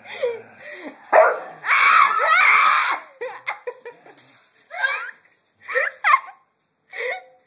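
A dog vocalizing mixed with a person laughing, in short bursts with one loud stretch about two seconds in.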